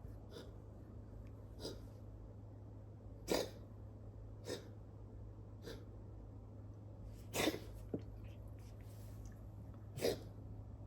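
A cat coughing: about eight short, sharp hacking coughs, one every second or so, over a steady low hum. The cough is one the owner links to feline asthma.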